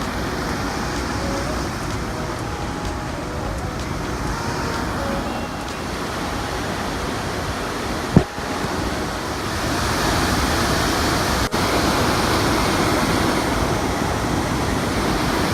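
Steady rush of a waterfall's falling water, a little louder from about ten seconds in, with one sharp knock about eight seconds in.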